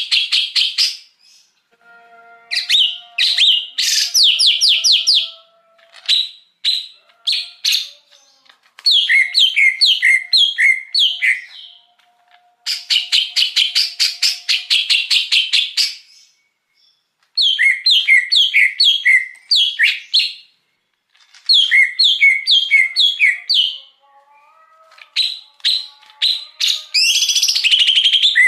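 Greater green leafbird (cucak hijau) singing: runs of fast, rapidly repeated sharp whistled notes, each run lasting one to three seconds, with short pauses between them.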